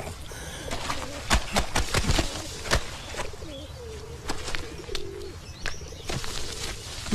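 Repeated slaps, knocks and rustles of wet laundry being scrubbed and handled, with a few low wavering cooing calls in the middle.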